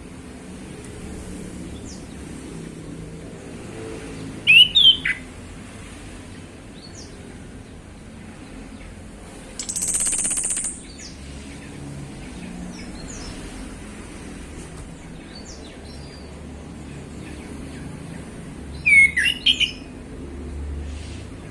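Male orange-headed thrush singing two short, loud bursts of sweeping whistled notes, one about four seconds in and one near the end, with faint high chirps between them. A brief hissing rustle comes about halfway through.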